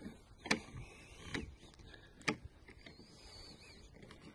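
Footsteps in grass, three steps at a slow walking pace in the first two and a half seconds.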